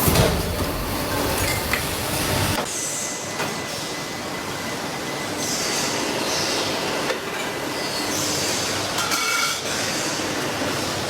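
Factory machinery running steadily, with short hissing blasts every second or two. The low rumble drops away about two and a half seconds in.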